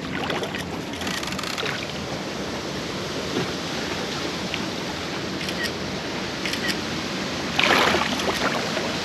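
Hooked wels catfish swirling and splashing at the water's surface, with the loudest splash about eight seconds in as it rolls and thrashes. Steady wind and water noise runs underneath.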